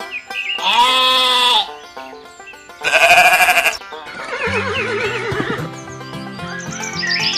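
Sheep bleating: two loud bleats about two seconds apart, then a quieter wavering call, over background music that picks up a steady bass beat about halfway through.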